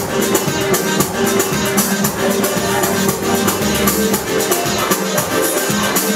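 Latin partner-dance music playing over a club sound system, with a steady beat and busy high shaker-like percussion.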